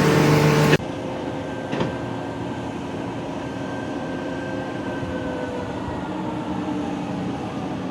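Steady machinery noise with faint whining tones and a single short clack about two seconds in, after a louder steady hum that cuts off abruptly just under a second in.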